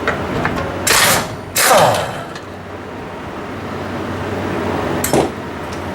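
Metal scraping and clanking in two bursts, about one and two seconds in, the second with a falling scrape, then a single sharp knock about five seconds in, as the front coil spring of a 1982 Ford F-150 is worked loose from its seat. A low steady hum runs underneath.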